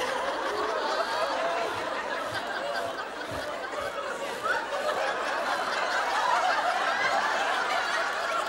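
Studio audience laughing: a long, unbroken wave of laughter and chuckling from many people at once.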